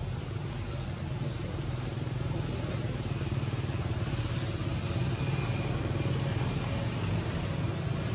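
A steady low motor-vehicle engine hum over a constant hiss, growing slightly louder partway through.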